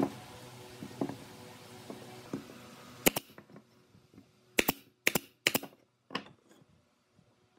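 Nail gun firing about six sharp shots into a glued wooden cross-lap joint, starting about three seconds in, some in quick pairs. Before the shots come a few light knocks of wooden pieces set down on the workbench.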